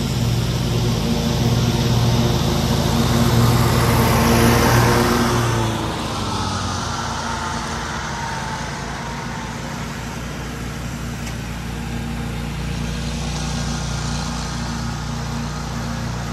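Commercial stand-on mower engine running close by, then pulling away: about six seconds in its note slides down and fades. A quieter small engine keeps running steadily underneath.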